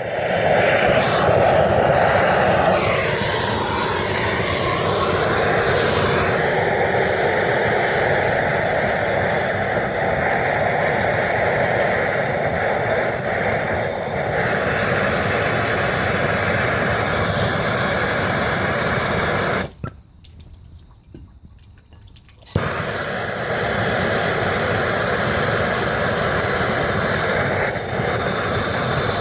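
Small leaf blower running steadily, blowing air into a wood-and-bark fire in a small homemade furnace to fan the flames. It cuts out for about two seconds past the middle, then starts again.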